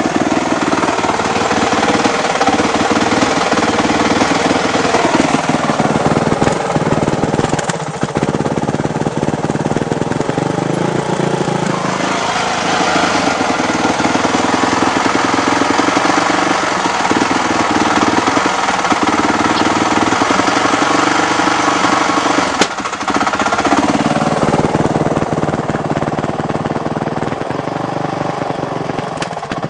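Honda CRF450 single-cylinder four-stroke dirt bike engine running close up, its revs rising and falling a few times.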